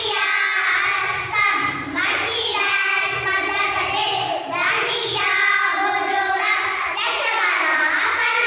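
A group of young girls singing together in unison, holding long notes.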